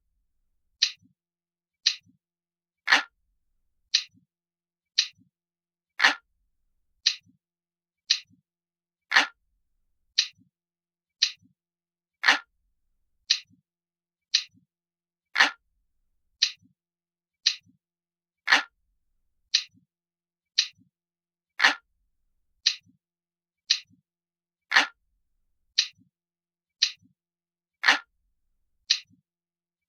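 Recorded analog clock ticking, about one tick a second, every third tick a little louder and fuller.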